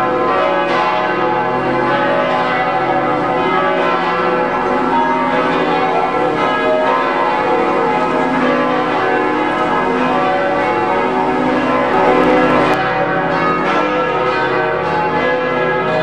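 Church bells of Notre-Dame Basilica ringing, many bells overlapping in a loud continuous peal.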